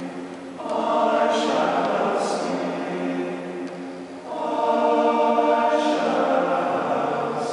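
Men's chorus singing a hymn without accompaniment in a reverberant stone chapel. The singing comes in two phrases of held chords, one swelling in about half a second in and another about four seconds in, with the 's' sounds of the words audible between them.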